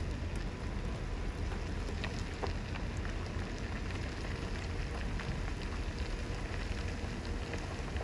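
Steady low rumble and hiss of a vehicle on a gravel road, with scattered light crackles.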